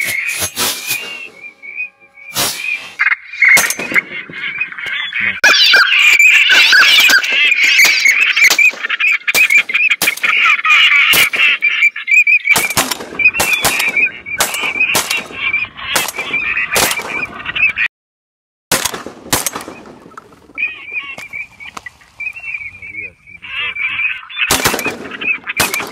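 Shotgun shots fired over and over, often several in quick succession, over continual loud duck quacking and calling. The sound drops out briefly about two-thirds of the way through.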